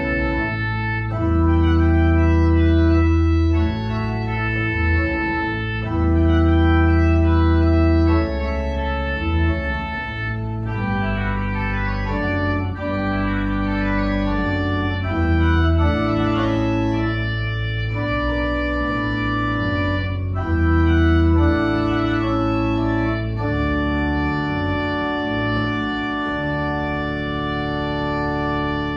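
Organ playing a slow piece in sustained chords, each held at full strength and changing every second or two.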